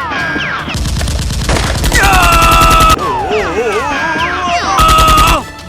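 Two bursts of rapid automatic gunfire sound effects, the first about two seconds long and the second shorter near the end, with falling whistling sweeps in between, over background music.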